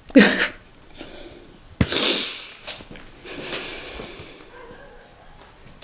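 A woman breathing hard and sniffling while upset: a short voiced sigh at the start, a loud sharp sniff about two seconds in, then a longer, softer breath out.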